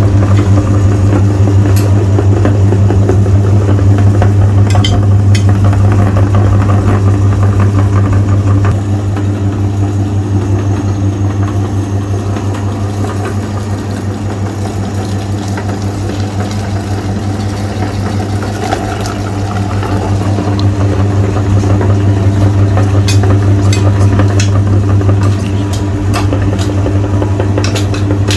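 Electric meat grinder's motor running with a steady hum while grinding frozen ice cream bars; it gets quieter for about ten seconds midway, and a few sharp clicks come through, more of them near the end.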